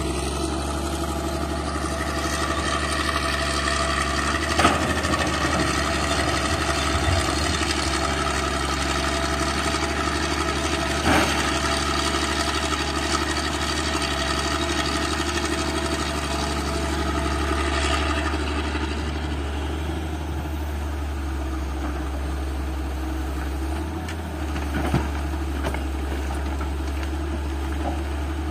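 Hitachi hydraulic excavator's diesel engine running steadily while it digs and loads a dump truck. Two single sharp knocks stand out over the engine.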